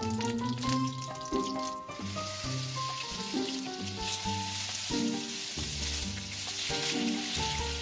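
Chicken breasts sizzling as they go into hot butter and olive oil in a nonstick frying pan; the sizzle swells about two seconds in and stays loud, over background music with a melody.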